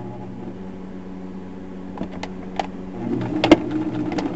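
Old electric sewing machine's motor humming, then running louder and faster about three seconds in as the needle stitches through thick terry-towel fabric, feeding in reverse. A few sharp clicks come through along the way.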